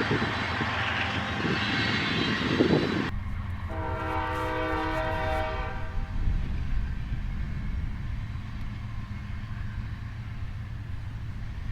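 Train horn sounding a chord. One blast cuts off abruptly about three seconds in, and a second, shorter blast follows about a second later; after that only a low rumble of the train remains.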